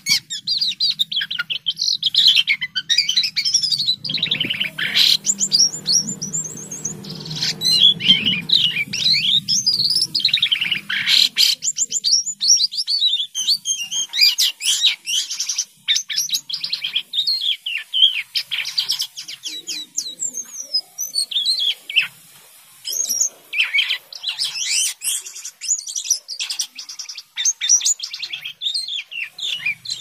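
A caged sripapon songbird singing almost without a break: a fast, varied string of high chirps and whistles with only short pauses.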